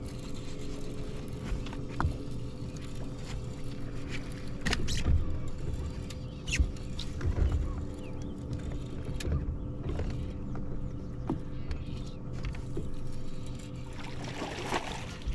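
Bow-mounted electric trolling motor of a bass boat humming steadily, with scattered knocks on the boat. A hooked bass splashes at the surface beside the boat near the end.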